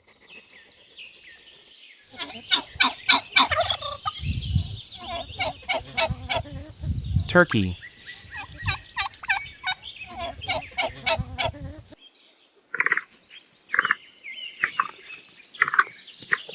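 Domestic turkeys gobbling: rapid rattling runs of calls, with shorter separate calls near the end.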